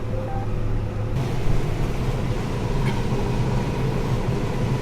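Combine harvester running, heard from inside its cab as a steady low engine and machine drone; the hiss above it grows brighter about a second in.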